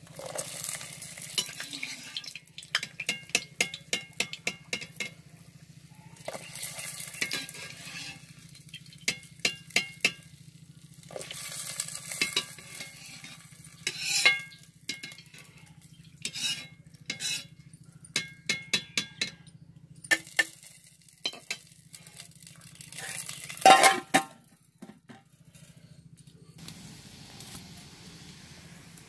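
Gram-flour pakodas sizzling in hot oil in a steel kadhai, with a metal slotted spoon clinking against the steel wok and pot in quick runs of taps. One louder metal clatter comes near the end.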